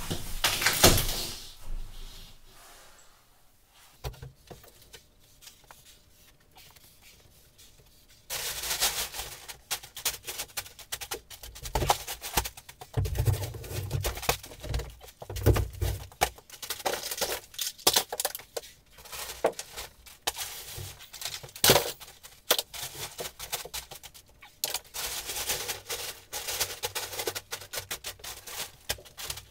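Drywall being ripped off wall studs by hand: a loud crack and crash near the start, then a quiet spell, then from about eight seconds in a long run of tearing, snapping gypsum board and thuds of broken pieces dropping.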